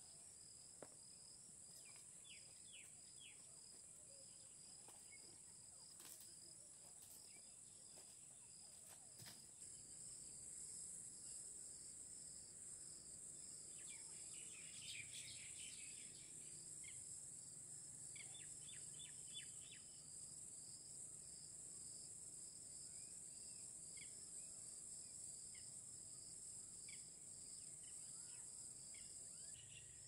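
Faint outdoor insect chorus: a steady high drone with a regularly pulsing chirp, broken by a few short bursts of rapid chirps. A few faint ticks in the first ten seconds.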